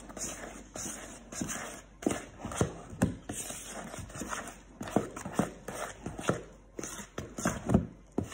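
A utensil scraping and knocking against a plastic mixing bowl while banana muffin batter is folded together by hand, in irregular knocks and scrapes.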